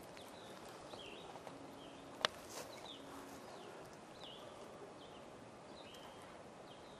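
A bird calling repeatedly in short, high, downward-slurred chirps, roughly one a second, over a faint outdoor background. A single sharp click comes about two seconds in.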